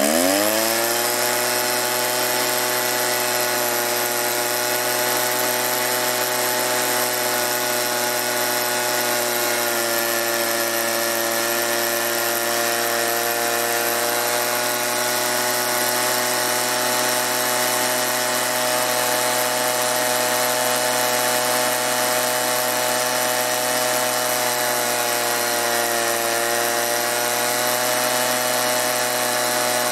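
Stihl backpack leaf blower's two-stroke engine revving up from idle within about a second and held at high speed with the fan rushing. Its pitch sags slightly twice while the carburetor mixture screw is being turned to find the best setting.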